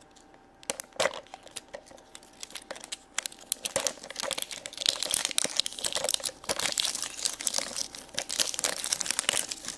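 A wrapper crinkling and tearing as a toy Easter egg is unwrapped by hand. The crackling is sparse at first and grows busier and steadier about four seconds in.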